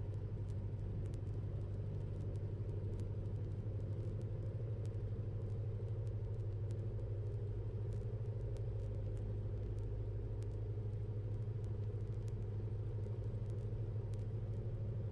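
Cessna 172's piston engine and propeller droning steadily on approach to landing, heard through the cockpit intercom, low and even with no change in power.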